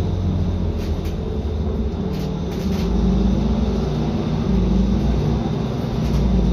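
Mercedes-Benz Conecto solo city bus heard from inside, near the front door: engine running and road rumble as the bus drives. A few light rattles come through, and it grows louder about halfway through and again near the end.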